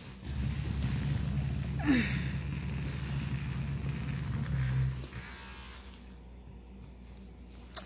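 Electric Conair back massager's motor humming steadily, then switching off about five seconds in. A short sound falling in pitch cuts across it about two seconds in.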